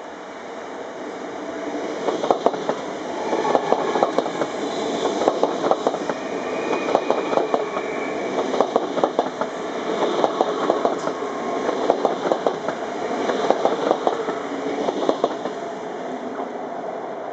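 Dutch double-deck electric train running past close by, its wheels clattering over rail joints and points in repeated groups of sharp clicks over a steady rolling rumble. The clatter fades near the end as the train clears.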